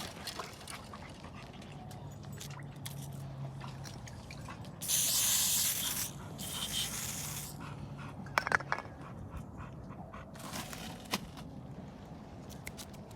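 A spray of garlic scent attractant being sprayed onto a trout bait in two hissing bursts about five seconds in, with a shorter, fainter spray a few seconds later and small handling clicks around them.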